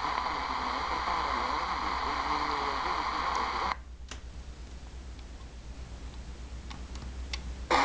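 Longwave AM broadcast on the Degen DE1103's speaker through its ferrite antenna, a voice under heavy hiss and static, cut off abruptly a little under four seconds in as the radio is switched off. After that, a few faint button clicks from the keys of the Sony ICF-SW35.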